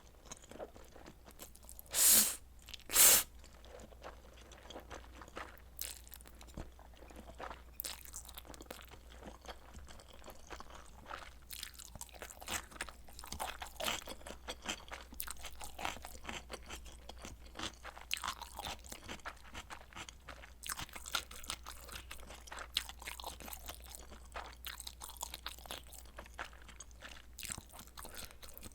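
A person chewing spicy stir-fried noodles and kielbasa sausage: a steady run of small wet, crackling chewing clicks. There are two loud short bursts about two and three seconds in.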